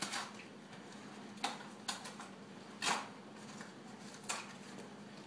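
Cardboard baking-mix box being opened by hand and a pouch pulled out of it: about five short tearing and crinkling sounds, a second or so apart.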